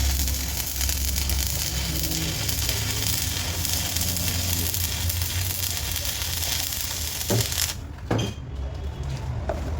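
A steady hissing sizzle over a low machine hum, cutting off abruptly about eight seconds in, followed by a few short knocks.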